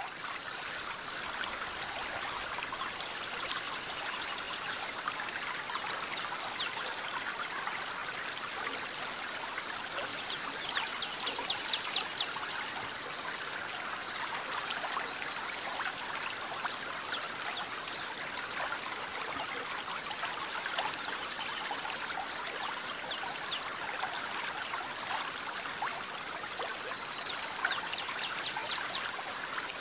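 Steady rush of flowing water. A high, rapid ticking trill comes and goes about five times over it.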